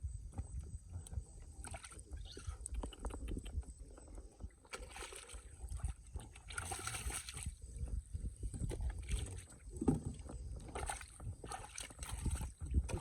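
Irregular sloshing and splashing of shallow water as a person wades and gropes for fish by hand, with scattered small knocks and a few louder splashes about halfway through.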